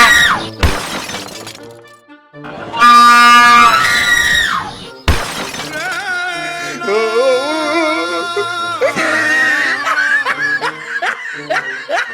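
Loud blasts of a train horn sound used as a prank. The tail of one blast sounds at the start, and a second blast runs about two seconds from roughly two and a half seconds in, its pitch sagging as it cuts off. A sharp crash follows, then background music with a wavering melody.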